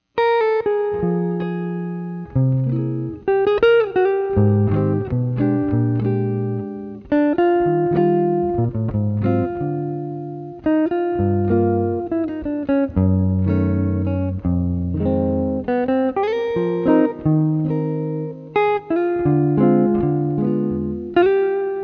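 D'Angelico Excel EXL-1 archtop jazz guitar played solo in chord-melody style: slow, ringing chords with bass notes moving underneath a melody line.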